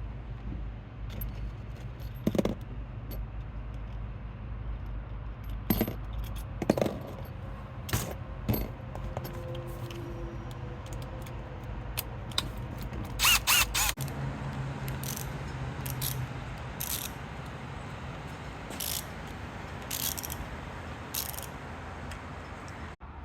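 Screwdriver bits and a ratcheting driver being handled: scattered sharp metallic clicks and clinks, with a quick run of bright ringing clinks about halfway through, over a steady low hum.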